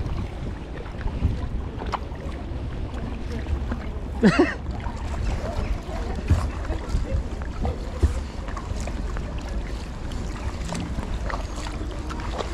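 Sea kayak being paddled: paddle strokes splashing in the water, with a steady wind rumble on the microphone. A brief pitched cry about four seconds in.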